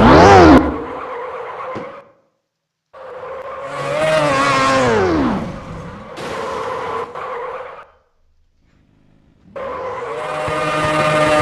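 Motorcycle engine revving in three bursts, its pitch climbing and falling away. Each burst is cut off abruptly into silence.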